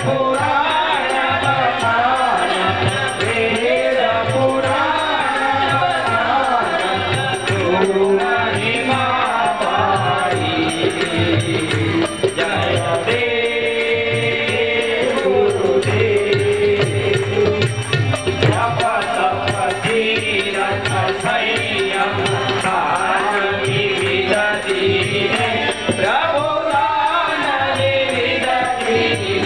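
Devotional Hindu hymn sung by a group, led by a man singing into a microphone, as an aarti is performed. A steady run of sharp metallic ticks from small percussion keeps time throughout.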